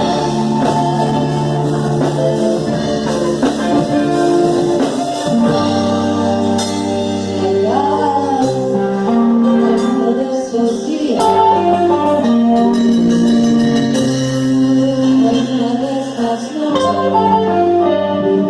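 Live band music: guitar chords over low sustained notes, with a singing voice.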